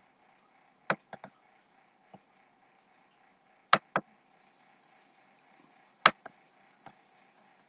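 Sharp computer clicks, singly and in quick pairs, loudest about 1, 4 and 6 seconds in, over a faint steady hum. They come from working the computer while a live stream lags.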